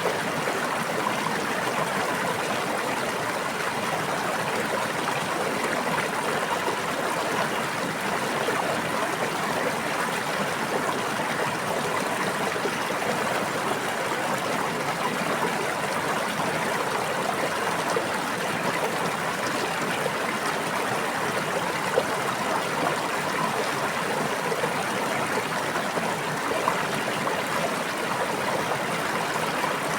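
A stream running steadily, an even babbling flow of water with no change in strength, and one brief sharper splash or tick about two-thirds of the way through.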